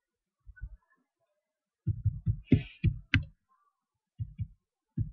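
Computer keyboard keys being typed in quick runs, heard as dull low thumps with a few sharper clicks, as a username and password are entered.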